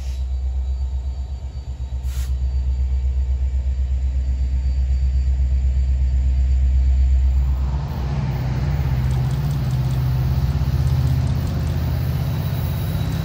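Double-stack freight train rolling past close by behind its diesel locomotive, a deep steady rumble. About eight seconds in the sound changes abruptly to a hissier, lighter rumble of another diesel-hauled train approaching from down the line.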